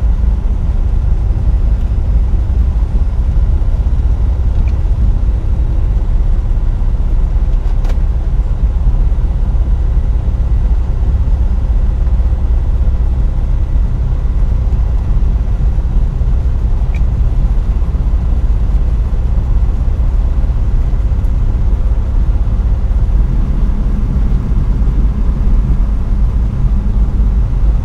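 A Tecnam P92's Rotax 912 flat-four engine and propeller run at low taxi power, heard from a microphone under a headset earcup as a steady low drone.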